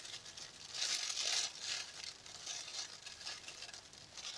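Clear plastic oven roasting bag crinkling as hands gather its open end around a seasoned whole chicken. The loudest rustling comes about a second in, followed by lighter, scattered crinkles.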